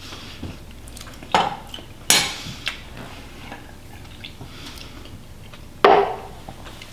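A few short clinks and knocks of a metal serving spoon and kitchen items on the counter, the loudest about two seconds in and another near the end.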